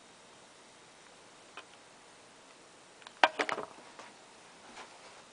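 Faint room hiss broken by a single click, then a quick clatter of sharp clicks and knocks about three seconds in, with a few lighter ticks after it.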